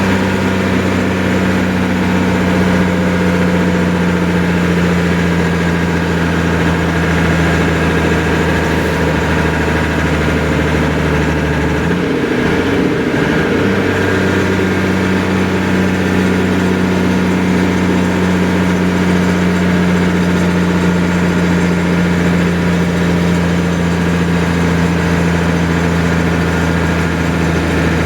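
A large engine running steadily at a constant speed. About twelve seconds in, its note wavers briefly for a couple of seconds, then settles again.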